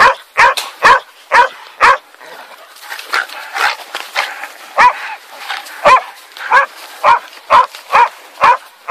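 Hunting dogs barking hard and fast as they bay and grapple with a wild boar, about two sharp barks a second. A short lull comes a couple of seconds in, filled with quieter sounds, before the barking picks up again.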